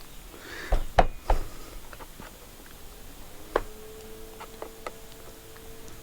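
A few sharp knocks and clicks from brushcutter parts handled and worked loose by hand: three close together about a second in, then single ones later.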